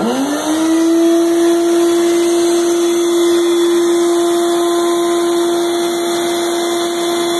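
Vacuum cleaner switched on, its motor spinning up over about a second and then running steadily with a constant whine and rushing air. Its hose is sucking the broken-off helicoil tang out of the bottom of a bolt hole in an aluminum cylinder head.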